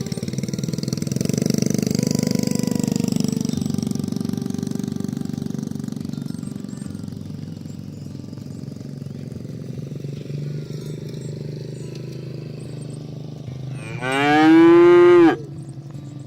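Cattle mooing: a long, low moo in the first few seconds, then a short, very loud, higher-pitched call about fourteen seconds in.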